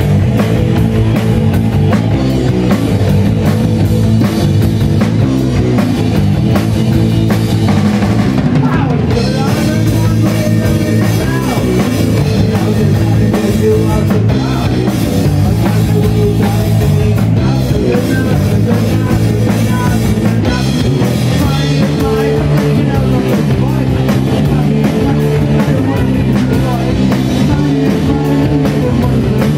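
Rock band playing loud and live: drum kit, distorted electric guitar, bass and synthesizer, with a man singing into a microphone over the top.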